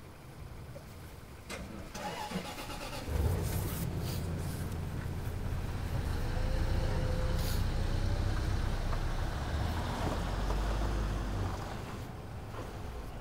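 A car engine being cranked to start. A few clicks come first, then the engine turns over steadily for several seconds from about three seconds in and falls away near the end. The start does not take: the car then has to be pushed.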